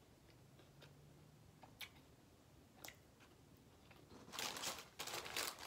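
A person quietly chewing a mouthful of sub sandwich, with a few soft clicks, then a louder stretch of crackly noise about four seconds in.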